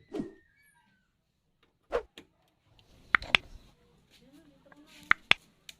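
A series of sharp clicks and knocks, several coming in quick pairs, with faint sounds between them.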